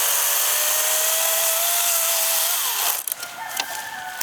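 EGO 56-volt battery chainsaw cutting through wood, its electric motor whining steadily with the pitch rising slowly as it works, then stopping about three seconds in. A few sharp snaps and cracks follow.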